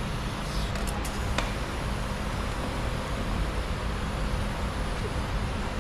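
Steady background hum and hiss of machinery running, with a few faint clicks about a second in.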